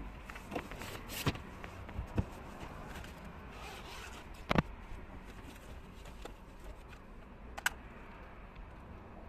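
Handling noises in a car's boot: rustling of a nylon bag with scattered knocks and clicks of hard plastic as a spare-bulb kit is taken out. The loudest knock comes about four and a half seconds in, and a sharp click comes near the end.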